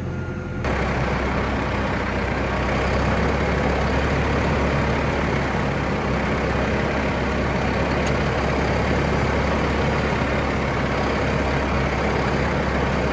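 Massey Ferguson 5711 tractor engine running steadily while driving across the field, with a constant low hum and dense mechanical noise that gets suddenly louder about half a second in.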